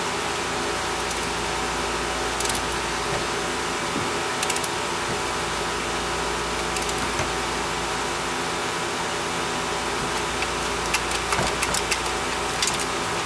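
Light metal clicks and taps of hand tools and parts being handled under a car during an oil change, a few scattered and then a quick cluster near the end, over a steady machine hum.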